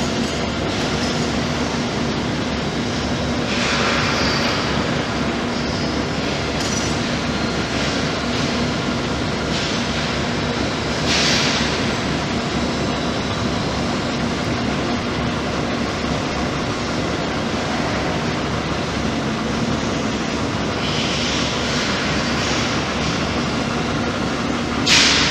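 Hypro vertical boring and turning mill running: a steady mechanical drone with a low hum, broken by short hisses a few times, the sharpest and loudest near the end.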